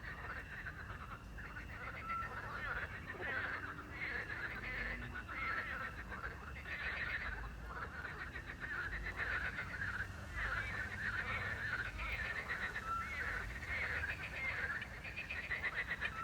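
Night chorus of frogs croaking continuously, over a steady high chirring of crickets. A short whistled note, the call of a small owl, repeats every few seconds.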